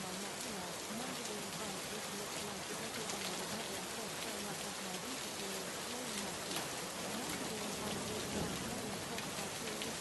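Steady rain sound with scattered faint drop ticks, masking a faint low voice whose pitch slowly wavers underneath: affirmations buried under a rain track.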